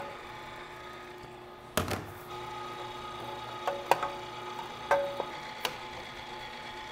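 MEAT! electric meat grinder's motor humming steadily, with a stainless steel bowl knocking and clinking against the grinder's metal tray as diced celery and onion are tipped and scraped in. One louder knock comes about two seconds in, followed by several lighter metal clinks that ring briefly.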